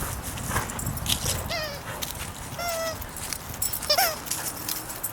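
Dog whining in three short high cries, the last one rising then falling, with scattered clicks and rustling around them.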